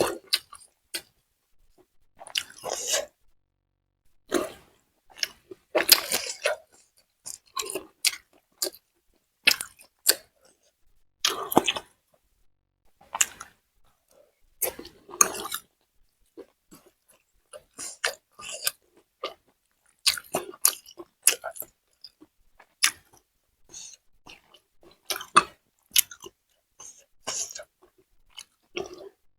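Close-up chewing and crunching of food in irregular bursts separated by short pauses.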